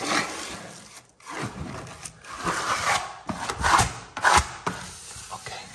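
A plastic wallpaper smoother scraping in repeated sweeping strokes across embossed crocodile-textured wallpaper, pressing it flat against the wall.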